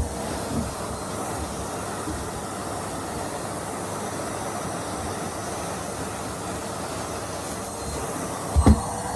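Henry canister vacuum cleaner running steadily with a faint steady whine as its nozzle sucks along a fabric sofa, with two dull thumps in quick succession near the end.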